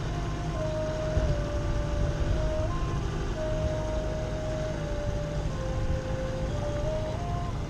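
Small outboard motor on an inflatable dinghy running steadily at low speed. A thin tone above it steps up and down in pitch, like a simple tune.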